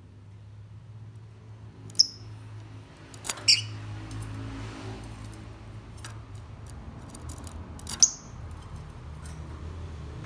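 Lovebird giving short, shrill chirps: three sharp ones about two, three and a half and eight seconds in, over a low steady hum.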